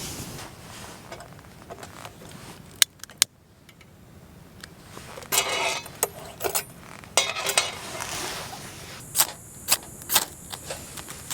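Small hard objects being handled: a few sharp clicks and clinks, with short rustling scrapes in between.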